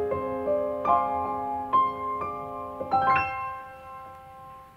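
Background piano music, gentle single notes and chords, ending about three seconds in on a final chord that rings on and fades away.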